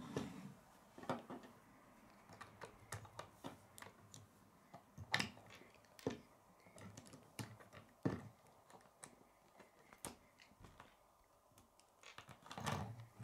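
K'nex plastic rods and connectors clicking and clattering as they are handled and snapped together on a wooden tabletop, in scattered, irregular clicks.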